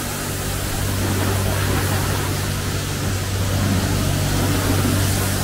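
Self-service car wash pressure washer: a steady hiss of high-pressure spray over the constant low hum of the wash pump, growing slightly louder about a second in.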